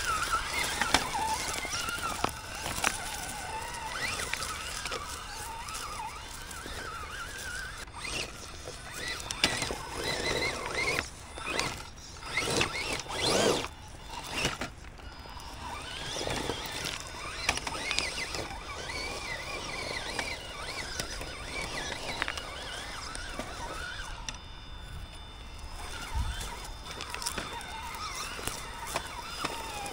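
Electric motor and drivetrain of an Element RC Gatekeeper rock crawler whining, the pitch wavering up and down with the throttle. There is a cluster of louder bursts of scraping and clatter about 11 to 14 seconds in.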